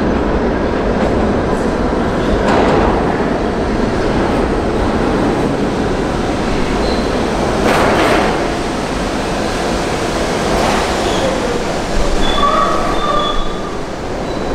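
An R68A subway train pulling into an underground station and stopping, with a steady rumble of wheels on rail that swells twice. Near the end, a brief high squeal of brakes or wheels sounds as it comes to a halt.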